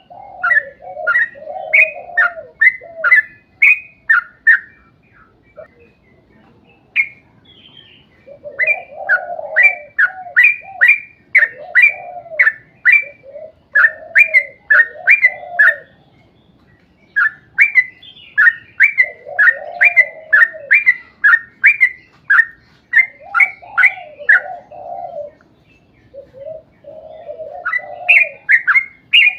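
Yellow-vented bulbul (trucuk) singing a long, fast run of short repeated chirps, about three to four a second, in bouts of several seconds broken by brief pauses, over lower warbling notes.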